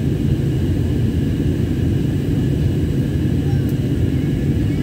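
Steady in-flight cabin noise of an Airbus A320-family jet airliner: a low, even roar of the engines and airflow, with faint steady whining tones above it.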